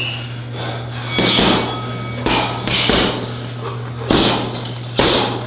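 Strikes landing hard on a striking bag or pads, five thudding hits at an uneven pace over a few seconds.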